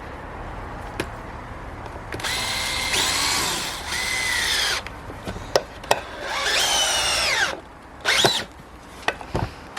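Dewalt DCD795 cordless drill driving a large screw into wood: two trigger pulls of a couple of seconds and a short blip near the end. The motor whine drops in pitch as it slows under load, with a few clicks in between.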